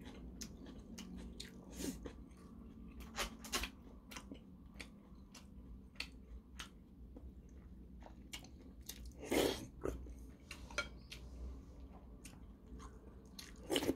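A person chewing and eating rice and kimchi stew close to the microphone. Scattered clicks of a metal spoon come against the ceramic bowls, and one louder sound falls about nine seconds in.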